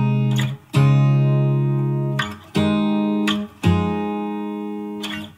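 Background music: guitar chords, each held for one to two seconds with short breaks between, and no singing.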